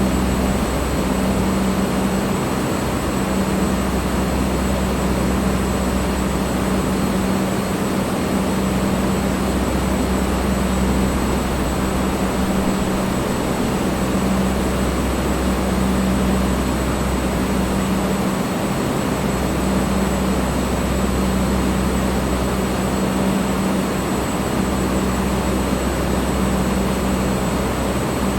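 Electric fan blowing steadily: a constant rush of air with a low motor hum.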